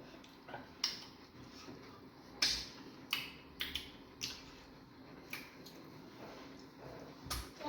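Close-up eating sounds: a scattered series of soft, sharp mouth smacks and clicks from chewing fufu with egusi soup.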